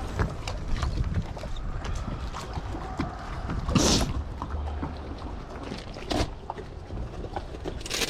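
Wind rumbling on the microphone aboard a small boat, with scattered light knocks and a short, louder rush just before four seconds in and again near the end.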